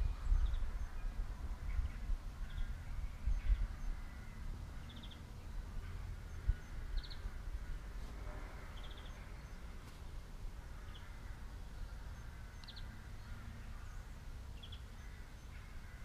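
Faint outdoor ambience: a low rumble with short bird chirps every second or two.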